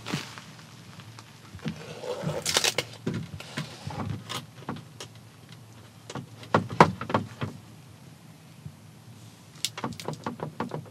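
Hard plastic clicks and knocks as a new Dakota Digital HDX gauge cluster is pushed and test-fitted into the dash's instrument opening, the loudest knock about seven seconds in, with crinkling of its plastic protective film around two seconds in.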